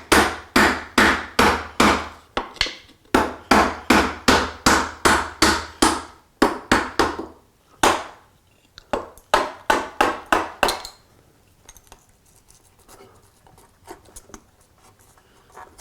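Hand saw cutting wood in steady back-and-forth strokes, about three a second, with two brief pauses. The sawing stops about 11 seconds in, leaving light clicks of the workpiece being handled.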